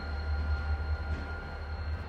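Diesel locomotive running light at low speed: a steady low engine sound with faint, steady high-pitched whines above it.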